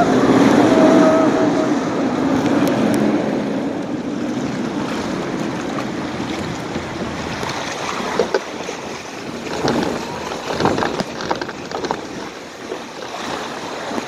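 Log flume water rushing along the trough around a moving log boat, with wind buffeting the microphone; the rush is loudest at the start and gradually dies down, with a few short knocks later on.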